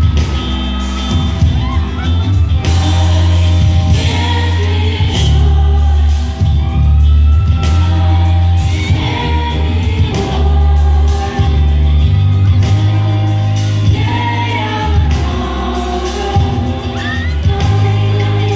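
Live band performing a song: a lead vocal over a loud bass line, drums, guitar and keyboards.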